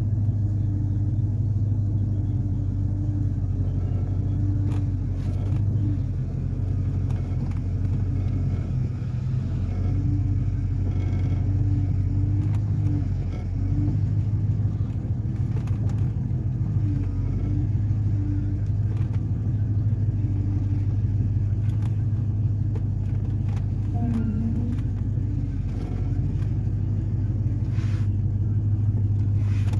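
Truck engine running steadily as the truck drives slowly across a field, heard from inside the cab, with a constant low hum.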